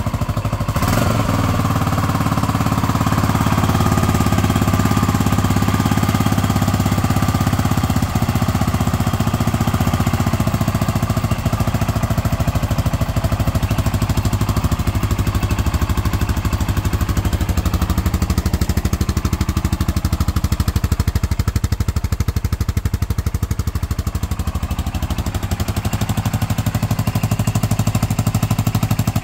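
Yamaha SRX400's single-cylinder four-stroke engine idling steadily with a fast, even thump, run up on fresh oil after an oil change.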